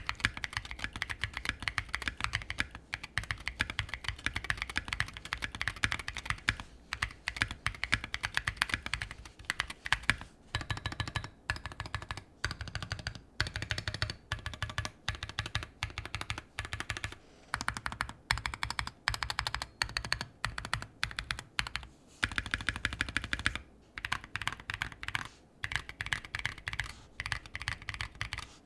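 Fast continuous typing on a 60% mechanical keyboard (Bakeneko 60) fitted with stock, factory-lubed Durock Anubis tactile switches (nylon housings, POM stems), each keystroke clacking on the bottom-out, with a few brief pauses.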